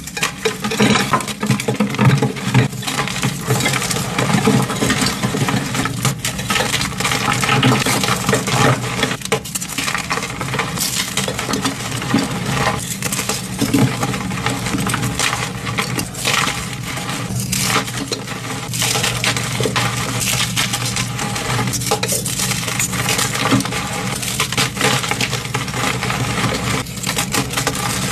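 Crunchy blocks of dyed gym chalk being crushed: a dense, continuous run of crackling and crunching.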